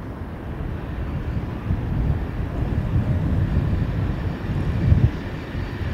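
Diesel passenger train running into the station: a low engine and wheel rumble growing steadily louder.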